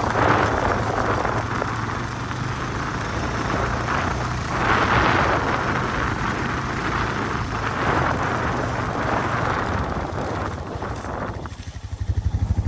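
A vehicle on the move: a loud, uneven rushing of road and wind noise over the engine's steady low hum. Near the end the rushing falls away, leaving a fast, even low pulsing.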